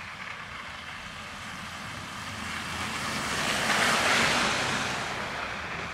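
A car driving past on the street: tyre hiss swells to a peak about four seconds in, then fades.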